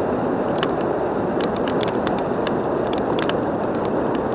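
Steady rushing of fast river current below a dam, with a few faint scattered clicks over it.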